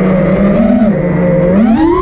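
Armattan Rooster FPV racing quad's brushless motors and 5-inch props whining at a steady pitch, with a brief blip, then rising sharply in pitch near the end as the throttle is punched.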